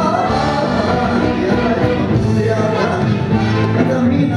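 A dangdut band playing live, with a man singing the lead over the band.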